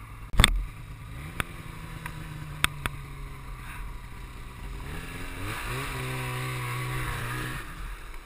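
Snowmobile engine idling, rising in pitch as it is revved about a second in, then revved higher for about two seconds before dropping back near the end. A loud thump comes about half a second in.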